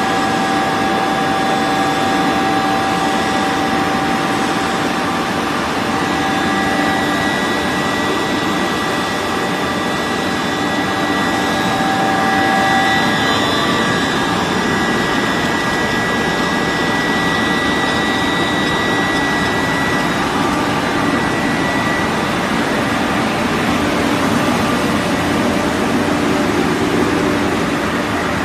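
PVC granulating extruder line running: a steady, loud machine noise from its electric drive motor, extruder and blower, with several steady whining tones that shift a little over time.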